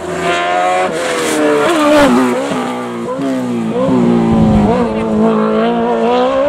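Race prototype's engine accelerating hard out of a hairpin and climbing away, the pitch rising and then dropping back several times as it changes up through the gears.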